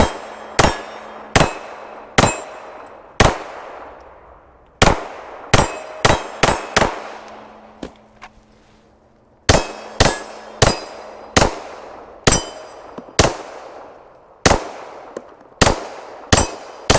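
Two strings of 9mm pistol fire as a CZ P09 Duty and a Glock 34 Gen 5 are emptied. There are about ten shots at one to two a second, a pause of about two seconds, then about a dozen more. Each shot rings out and dies away over a fraction of a second.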